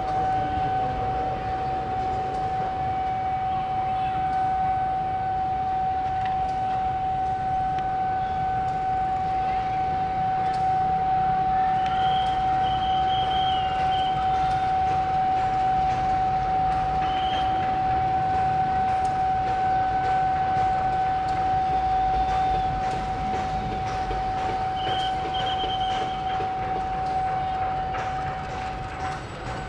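Railway level-crossing warning alarm sounding one steady, unbroken high tone, the signal that a train is approaching and the crossing is closed.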